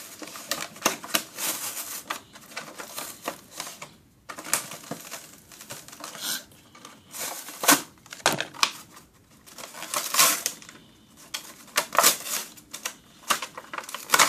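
Action figures and their plastic packaging being handled, giving irregular clicks, taps and rustling.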